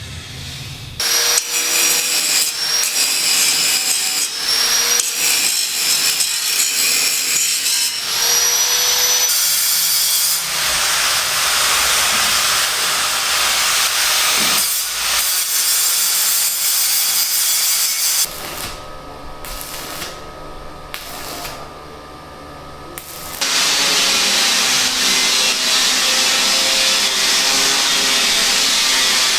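Power tools cutting on a building site, heard in several short clips with abrupt changes. A high-pitched, wavering whine runs over harsh cutting noise. About two-thirds of the way through comes a quieter stretch with a steady hum, then loud cutting noise again.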